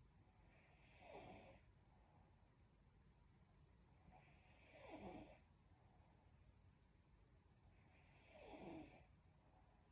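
A young woman snoring faintly in her sleep: three slow snores, each swelling and fading over about a second, spaced roughly three and a half seconds apart.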